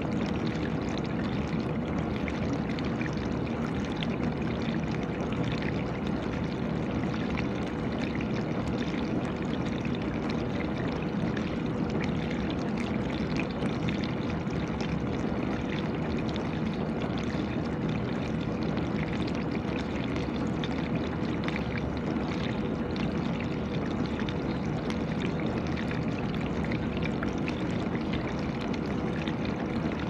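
GE dishwasher running mid-cycle: a steady rush of spraying, splashing water over the constant hum of its wash pump.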